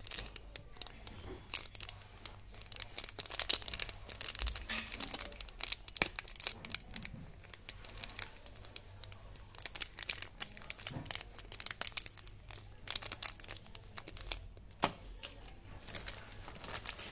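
Small plastic candy wrapper crinkling as fingers squeeze and turn it, a run of irregular crackles.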